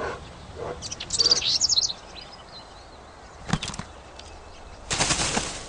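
Small songbirds chirping, a quick run of high calls about a second in, followed by short whirs of wing flapping, the longest near the end.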